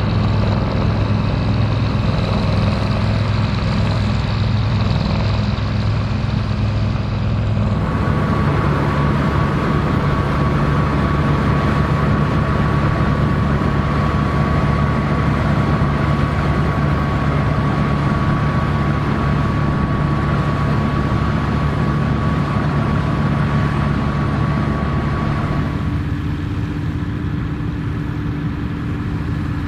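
Dronningborg D2600 combine harvester running steadily under load while harvesting barley, engine and threshing machinery together. The sound changes abruptly about eight seconds in, when a steady high whine joins, and again near the end, when the whine drops out.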